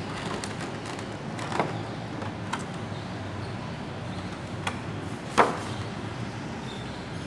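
Clear plastic blister packaging clicking and knocking a few times as it is handled and set down, the loudest knock about five seconds in, over a steady low background rumble.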